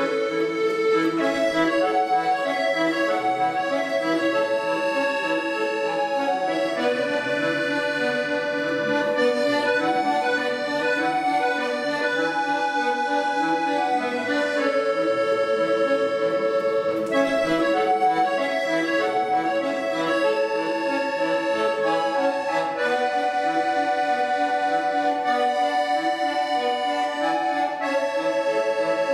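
Piano accordion played solo: a melody of held notes over steady chords in the bass.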